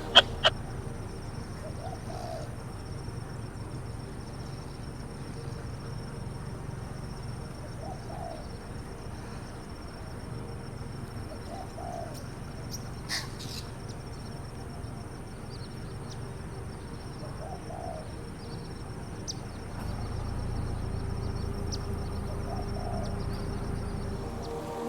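A pigeon or dove gives a few soft, low coos several seconds apart, over a low background rumble and a faint steady high-pitched whine.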